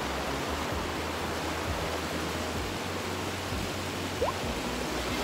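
River water rushing over rocks, a steady hiss of flowing water. A short rising chirp sounds about four seconds in.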